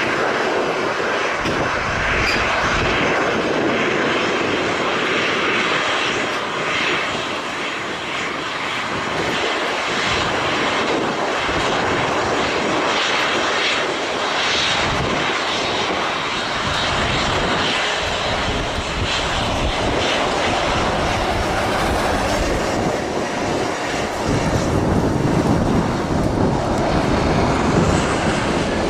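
Jet airliner engines running as Airbus A320-family jets move along the runway, a steady rushing jet noise, with strong wind buffeting the microphone. It grows louder near the end.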